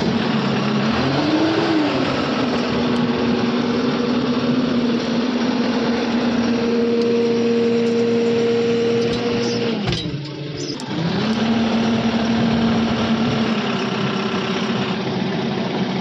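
JCB backhoe loader's diesel engine running while the machine drives over a rough track, its steady note rising and falling with the throttle. About ten seconds in the note drops away briefly with a few clicks, then picks up again.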